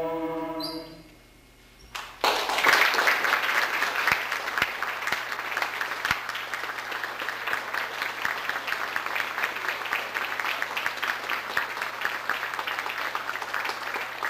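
A mixed-voice a cappella ensemble's last held chord ends just under a second in; after a short hush, a hall audience breaks into steady applause about two seconds in.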